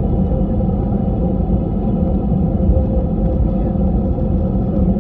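Airliner cabin noise: a steady low rumble with a faint steady hum.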